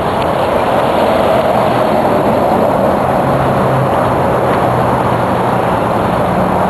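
Off-road vehicle driving over rough ground: its engine running under a steady, loud rush of wind and terrain noise.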